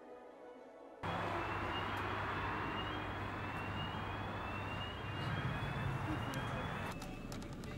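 Faint music for about a second, then bus-station traffic noise comes in suddenly: a vehicle engine with a low hum, and a high whine that rises over and over. Near the end the whine stops and a few sharp clicks are heard.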